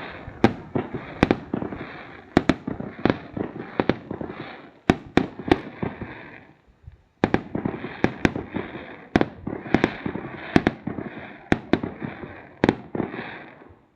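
New Year fireworks going off: a rapid, irregular string of sharp bangs over a continuous crackle, with a short break about halfway through.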